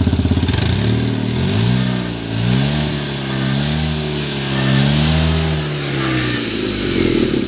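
Tata Nano's two-cylinder petrol engine revved up and down several times, its pitch rising and falling, then dropping back toward idle near the end. The engine runs smoothly, its misfire cured, with the exhaust puttering from a torn silencer.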